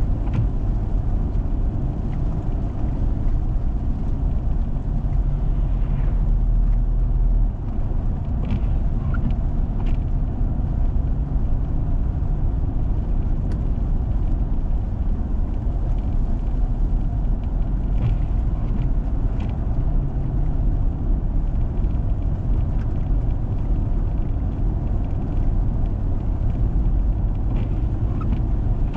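Four-wheel-drive vehicle driving on a snow-covered road: a steady low rumble of engine and tyres, with a few faint ticks and knocks scattered through.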